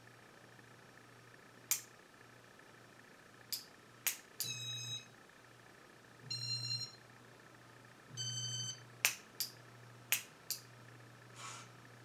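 1984 Casablanca Panama ceiling fan running with a faint steady motor hum, broken by several sharp clicks and three short electronic beeps as its light kit is switched on and back off.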